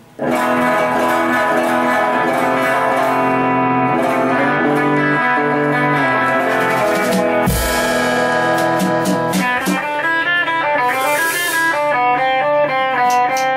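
Stratocaster-style electric guitar playing a blues intro. It comes in suddenly with ringing chords, moves to a stepping single-note riff about two-thirds through, and slides up in pitch near the end.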